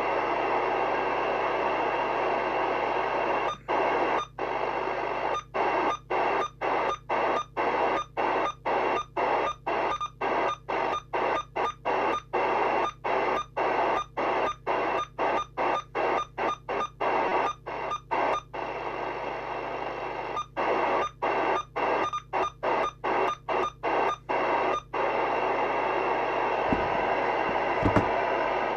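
Hiss from a President Walker ASC FM CB receiver's speaker, squelch open on channel 19 with an outside aerial connected. Through most of the middle the hiss is broken by short dropouts, about two a second, and it cuts off suddenly at the end.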